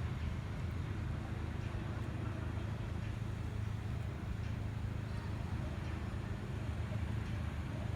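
A steady low rumble, even throughout.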